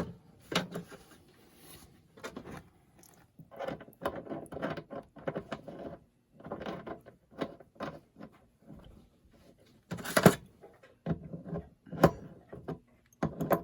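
Handling noise of faucet parts and hand tools being worked during a faucet repair: irregular knocks, clicks and scraping, with two sharper knocks about ten and twelve seconds in.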